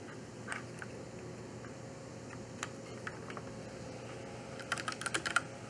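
A few scattered light clicks as a USB plug and hub are handled, then a quick run of keystrokes on a computer keyboard near the end, typing a short command.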